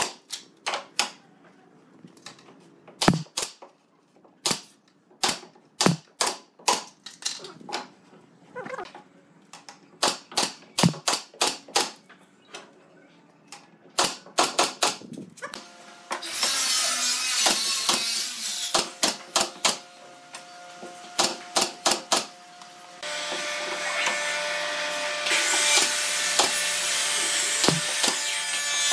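Woodworking sounds: a run of sharp, irregular taps and knocks on wood, then about halfway through a power tool starts up, stops for a couple of seconds among more knocks, and runs again.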